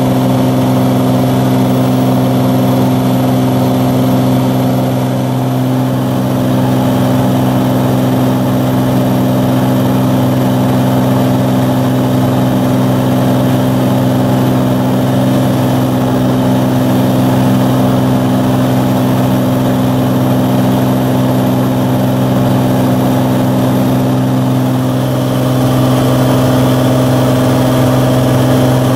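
Cirrus SR22's six-cylinder piston engine and propeller droning steadily in flight, heard inside the cockpit; the tone shifts slightly near the end.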